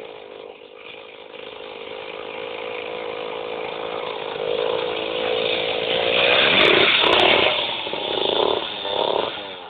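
Go-kart's small engine buzzing, growing steadily louder as the kart comes closer. Its note rises and falls a few times near the end before dropping away.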